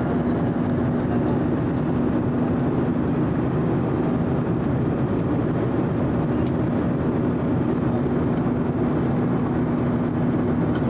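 Steady cabin noise of a jet airliner in flight: an even rush of engine and airflow with a steady low hum underneath.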